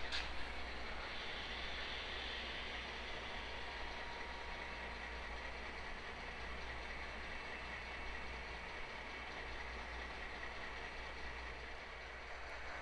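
HO-scale model train running on track: a steady whir of the locomotive's motor and wheels on the rails, with a few sharp clicks right at the start.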